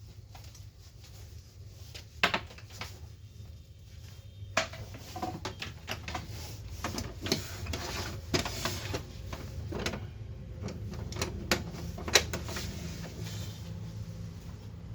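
Canon LBP 2900 laser printer making irregular plastic clicks and clacks over a low steady hum. The clicks are spaced unevenly, with sharp loud ones about two seconds in and again near the end.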